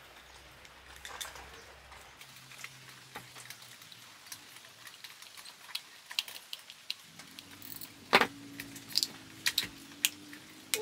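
Small plastic clicks and taps of a lamp socket being handled and screwed together, with the scrape of a small screwdriver on its terminals as the cable is wired in. The clicks grow louder and come in a quick cluster over the last few seconds, and a faint steady hum joins about two-thirds of the way through.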